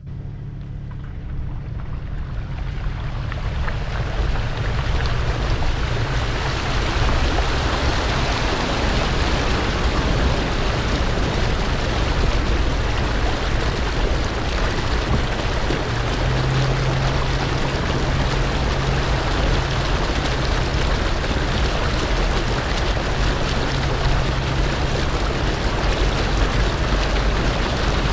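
Flood water surging and splashing along the side of a Volvo 850 estate as it wades through deep water: a steady rushing wash that builds over the first few seconds, with the engine's low rumble underneath.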